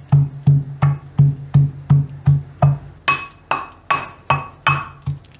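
Metal pestle pounding garlic and red chilli powder in a metal mortar into a garlic chutney, about three strokes a second. From about halfway the strikes ring with a metallic clink.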